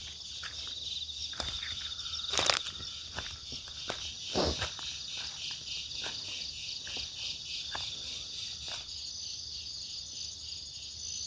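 Insects trilling in a steady, pulsing chorus, with scattered footsteps and crackles in the undergrowth; two louder rustles come about two and a half and four and a half seconds in.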